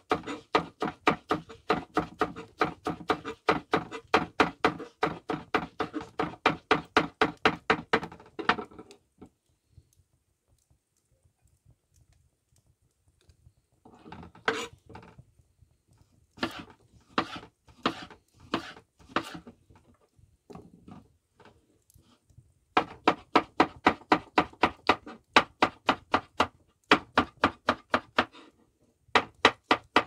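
A kitchen knife chopping leafy greens and then slicing a cucumber on a wooden cutting board, in quick knocking strokes of about four to five a second. The chopping stops for several seconds near the middle, comes back as scattered strokes, and then speeds up again near the end.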